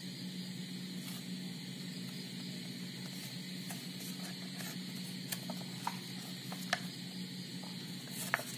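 Steady low hiss and hum of background noise, with a few faint clicks from a plastic drink pouch being handled, mostly in the second half.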